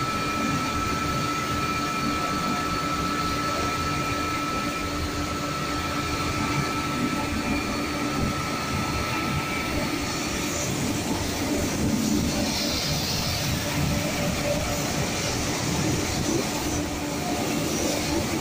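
Automatic train washing plant running: rotating brushes scrubbing the side of a passenger coach while water jets spray, a steady rushing noise. A thin steady whine stops about halfway through, and a brighter hiss of spray swells a little later.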